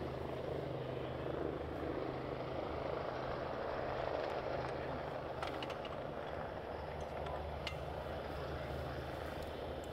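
A steady low engine drone, with a few faint light clicks about halfway through.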